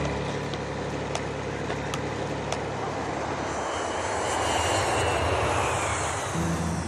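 An aircraft flying past: its engine noise swells to a peak and eases off, with a faint whine falling in pitch. Music comes in near the end.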